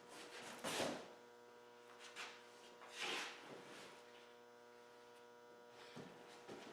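Faint steady electrical hum, with a few brief rustles and scrapes of packing and parts being handled out of a box, the clearest just under a second in and about three seconds in.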